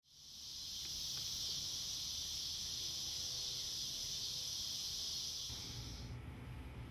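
Steady, high-pitched chorus of insects, fading in at the start and cutting off about six seconds in.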